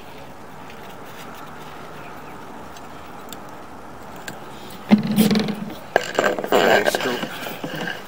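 Steady faint hiss, then from about five seconds in a series of loud knocks and scrapes as the sewer inspection camera is handled and fed back into the PVC cleanout, with a person's voice.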